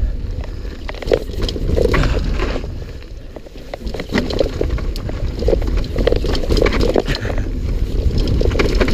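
Jamis Defcon full-suspension mountain bike rolling over a rocky trail: tyres rumbling on rock, with frequent knocks and clatters from the bike over a steady low rumble.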